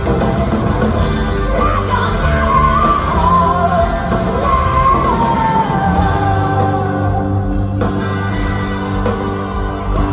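Rock band playing live, electric guitars, bass and drums, with a high, wavering sung line that slowly falls in pitch through the middle, heard from the audience in a large hall.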